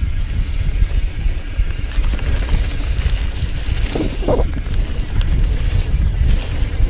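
Wind buffeting a camera microphone over the hiss and rumble of mountain-bike tyres rolling fast on a wet dirt trail, with the bike rattling over bumps.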